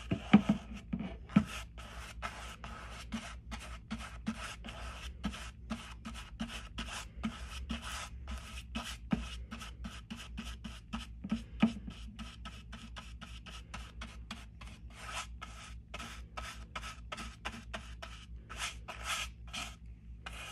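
Paint being mixed on a palette with quick, even scraping strokes, about three a second, over a faint steady low hum.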